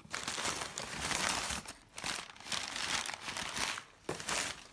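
Packing material crinkling as a hand rummages in an opened shipping box, in three rustling stretches with short pauses between them.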